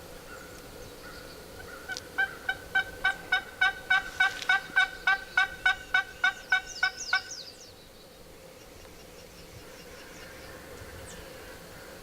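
Turkey yelps: a long, evenly paced series of about seventeen yelps, roughly three and a half a second, lasting about five seconds before stopping. Faint high chirps of a small bird come in near the end of the series.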